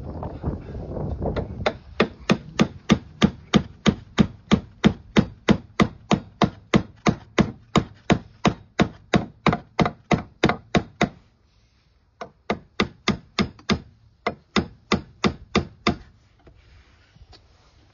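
Hammer striking small pine boards of a wooden frame in quick, steady blows, about three a second, with a short break about eleven seconds in, then two more runs of blows that stop near the end. Before the hammering starts there is a brief rubbing of wood as the boards are set in place.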